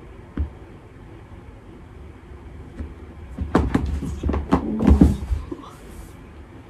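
A cat clambering up onto a seated person's lap against an office chair and dropping back to the floor: a burst of rustling, knocks and clicks from about three and a half seconds in, the loudest just after five seconds.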